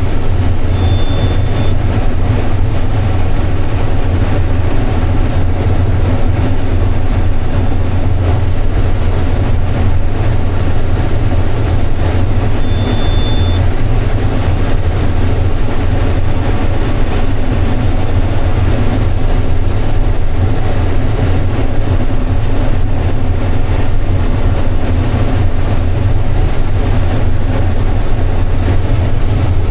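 Combine harvester running steadily while harvesting corn, heard from inside the cab: a loud, constant low drone with the threshing noise over it. A short high beep sounds twice, about a second in and again about thirteen seconds in.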